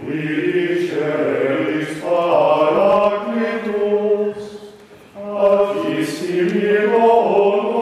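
A choir singing a slow liturgical chant, in two long sung phrases with a short break about five seconds in.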